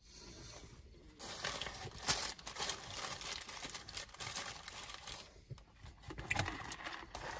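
Paper food packaging crinkling and rustling as it is handled, starting about a second in and dying away after about five seconds, followed by a few light clicks and taps.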